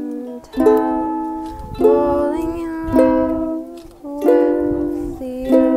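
Ukulele strummed slowly: five chords about a second and a quarter apart, each left to ring and fade before the next.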